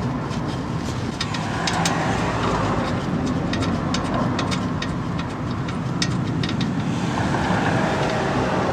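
Steady background traffic rumble, with scattered light metallic clicks as a Loctite-coated hub bolt is handled and threaded in by hand.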